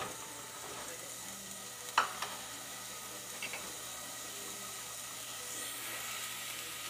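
Chopped onion sizzling in hot oil in a stainless steel saucepan, a steady hiss, with one sharp tap about two seconds in.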